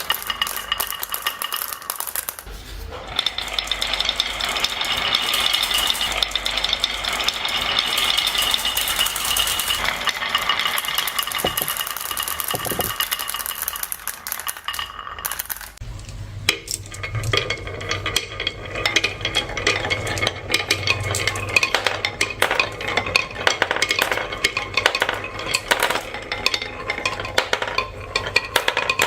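Marbles rolling and clattering down a marble run track: a dense, continuous rattle of small clicks and clinks. About halfway through, a low hum joins the rattling.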